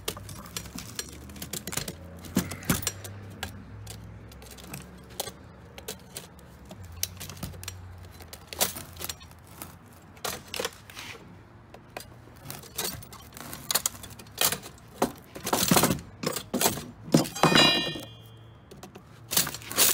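Hand tools prying and bending at a payphone's metal coin box, with irregular metal clinks, knocks and scrapes and coins jingling inside. The knocks grow louder and closer together near the end, with a brief metallic ring as the box gives way.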